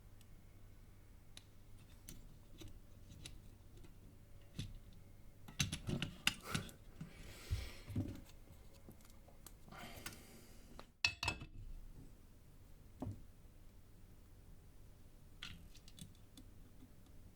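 Small clicks and snips of hand tools and components against a circuit board during through-hole soldering of resistors, with a flurry of sharp clicks about six seconds in, two soft hisses, and one sharp click about eleven seconds in.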